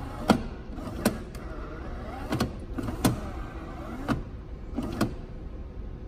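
Automatic coffee machine running as it dispenses a drink into a paper cup: a steady motor hum with sharp clicks about once a second, the last stage before the drink is ready.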